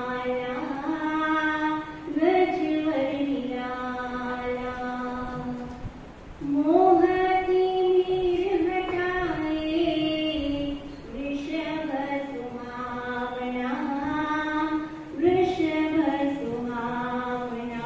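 A woman singing a slow devotional melody solo into a microphone, with long held notes in phrases of about four seconds and short breaths between them.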